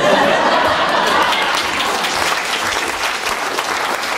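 Theatre audience clapping: the applause breaks out suddenly and keeps going, many hands at once.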